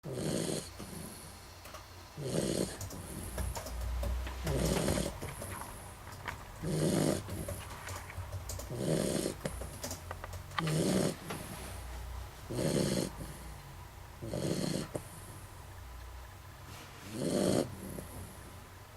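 Beagle snoring in deep sleep: a rasping snore about every two seconds, nine in all.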